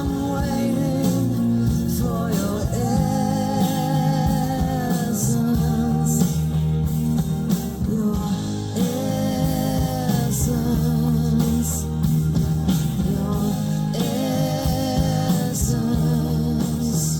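A song with a sung vocal over guitar and bass, played back through hi-fi speakers.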